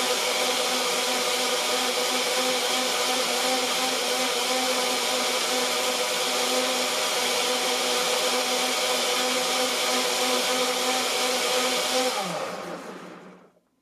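NutriBullet Blender Combo's 1200-watt motor base running steadily, blending a smoothie in the 64-ounce pitcher on the automatic Extract program. About twelve seconds in, the motor winds down with falling pitch and stops.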